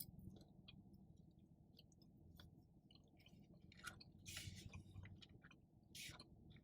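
Faint chewing with soft mouth clicks and smacks, a little louder about four seconds in and again near the end.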